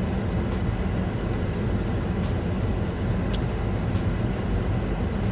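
Steady low rumble and hum inside a car's cabin, with a few faint clicks.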